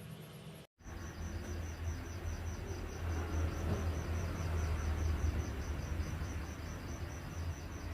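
Insect chirping: a high, even pulse of about five pulses a second, over a steady low hum.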